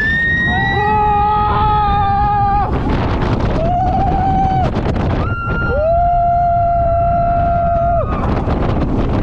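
Roller coaster riders screaming: three long, held high-pitched screams, the longest near the end, over a steady rush of wind as the train runs through the hills and drops.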